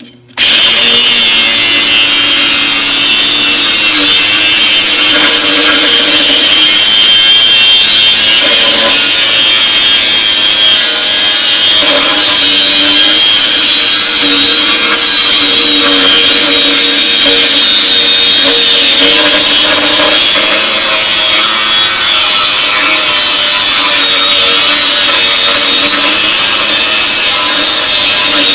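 Angle grinder switching on and grinding steadily into a welded-on steel bracket on a tractor frame, a loud continuous hiss of disc on steel.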